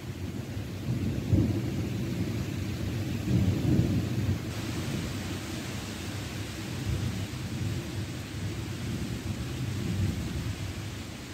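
Thunder rumbling and rolling on for several seconds, loudest about a second and a half in and again around three and a half to four seconds, then dying away near the end. A steady hiss of rain sits beneath it and gets stronger about four and a half seconds in.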